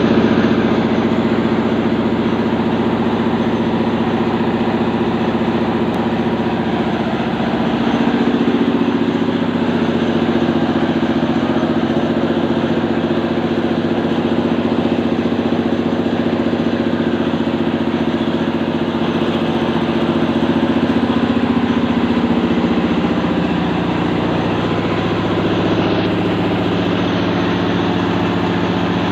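An engine running steadily, its drone shifting slightly in pitch a couple of times.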